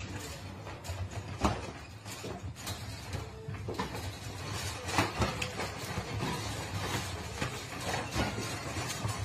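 Metal wire pet crate rattling and clanking as two cats wrestle inside it: irregular knocks and scuffles against the bars and tray.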